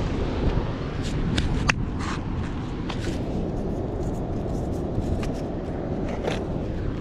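Wind buffeting the microphone as a steady low rumble, with a few light clicks about one to two seconds in, about three seconds in, and again near the end.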